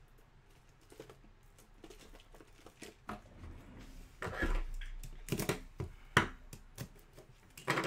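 Hands handling trading-card packs and packaging: crinkling wrappers and a few sharp taps and clicks, the loudest about six seconds in.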